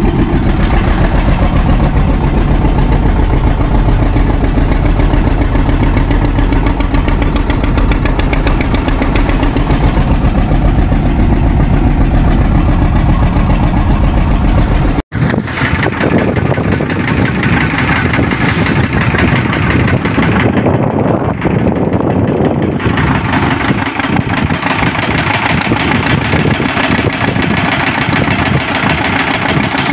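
Small fishing boat's engine running steadily at idle. About halfway through the sound changes abruptly and has less low rumble.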